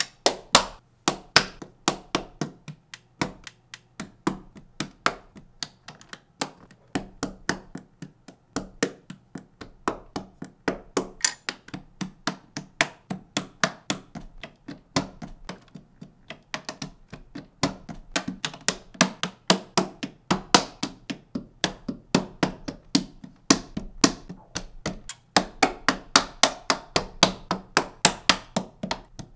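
Lego bricks clicking and snapping onto studs one after another, a quick, steady run of sharp plastic clicks at about four a second.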